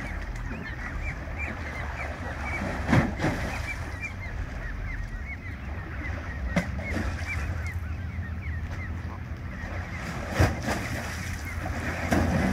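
Canada goose goslings peeping: many short, high calls repeating over and over, over a steady low rumble of wind and lapping water. A few short, loud thumps cut in, the strongest about three seconds in and again near ten seconds.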